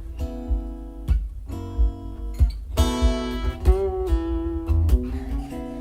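Music played back through Fluance powered bookshelf speakers: a song intro of acoustic guitar chords struck about once a second over a deep bass line.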